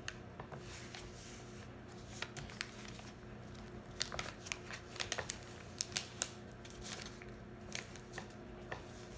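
A sheet of paper being folded and creased by hand on a table: scattered crisp crackles and clicks as the fold is pressed flat, busiest around the middle.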